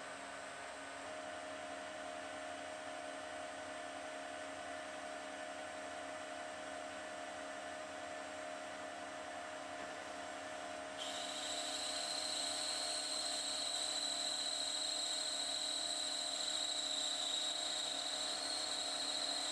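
Metal lathe running and turning down a brass bar with a carbide insert: a steady machine hum with fixed tones throughout. About eleven seconds in, a high, steady whine joins it and the sound gets louder until the end.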